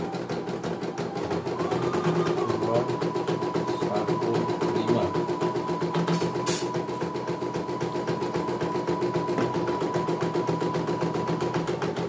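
CNY E900 portable computerized embroidery machine stitching a design in its hoop: rapid, even needle strokes over a steady motor hum, with one sharp click about six and a half seconds in.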